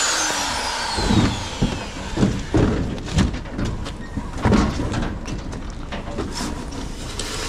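An electric power tool's motor spinning down after being switched off, its whine falling in pitch over about two seconds. Then a series of irregular clunks and thuds from tools and parts being handled on a steel-plate platform.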